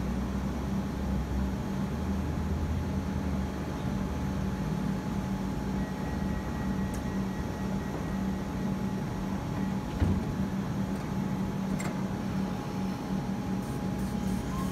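Comeng electric suburban train standing at the platform, its onboard air-conditioning and auxiliary equipment giving a steady hum with a low drone and a faint steady whine. A single sharp click about ten seconds in.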